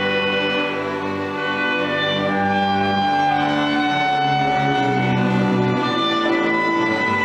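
School symphony orchestra playing live, its violins and cellos bowing held notes that change every second or so.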